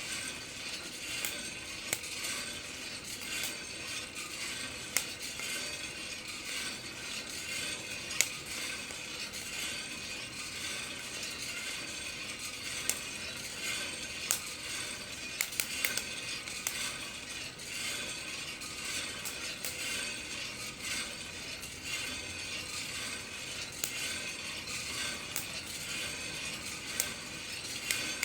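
Coffee beans cracking in a Kaldi rotating-drum roaster: sharp pops at irregular intervals, heard over the steady rattle of beans tumbling in the turning drum.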